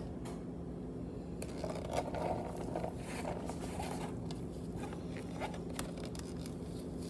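Soft scraping and light clicks of chopped onion and garlic being added by a gloved hand into a bowl of ground beef and celery, over a faint steady hum.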